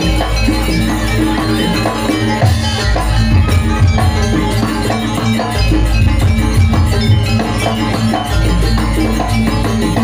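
Janger dance music with dense percussion over held low tones, the gamelan accompaniment to a garuda bird dance.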